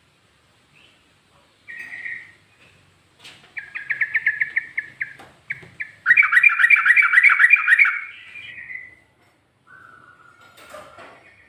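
Yellow-vented bulbul (trucuk) singing in rapid-fire phrases: a short note, then a quick run of repeated notes, then a louder, faster run lasting about two seconds, and a lower note near the end.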